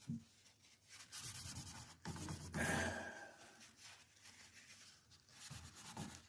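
Paper towel rubbing Old English over a wood furniture surface in a few scratchy passes. The loudest pass comes a little before the middle.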